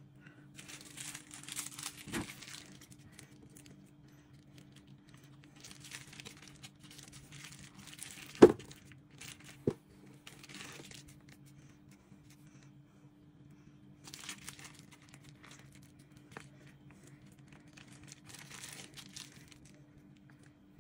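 Plastic bag wrapped around the mochi filling crinkling in several short bursts as hands squeeze and handle it. Two sharp knocks come about eight and a half and nine and a half seconds in, over a faint steady hum.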